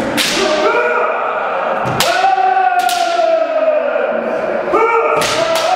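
Kendo sparring: several practitioners give long, drawn-out kiai shouts that overlap and slowly fall in pitch. Sharp cracks of bamboo shinai striking armour and stamping feet on a wooden floor come near the start, about two seconds in and about five seconds in.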